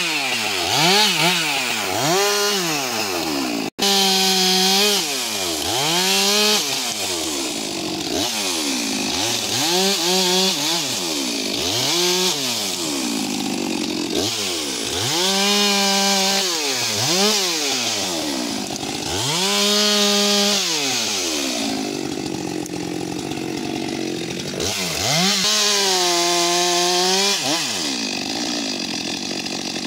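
Stihl MS 462 two-stroke chainsaw revved up and let back down again and again, every second or two, as it cuts through walnut branches.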